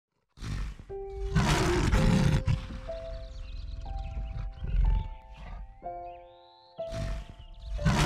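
Lion roaring and growling in several loud bursts over soft piano music.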